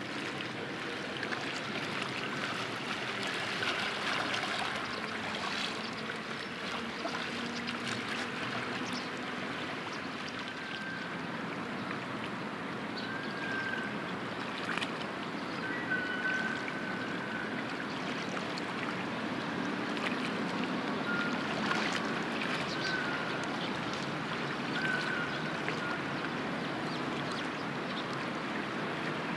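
Harbour water lapping and splashing steadily at the shore, with a faint low hum underneath and a few short high chirps from about ten seconds in.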